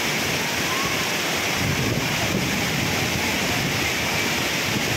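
Steady rush of water from a waterfall, with shallow water flowing over the floor and around the legs of the tables and benches.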